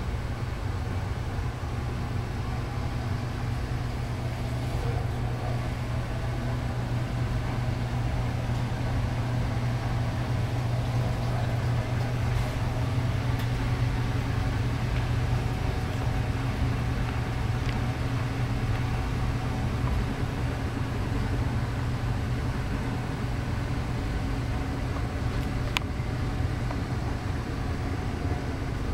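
Steady low hum with a faint rumble, unchanging throughout, and a single faint click near the end.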